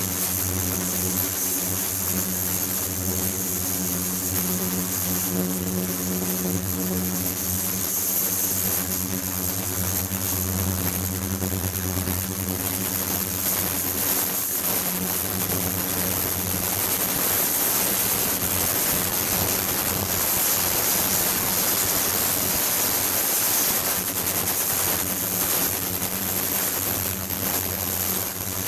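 Ultrasonic tank running, its water agitated: a steady hum made of a stack of low tones, with a thin high whine and a hiss of churning water over it. About halfway through, the low hum fades and the hiss grows a little louder.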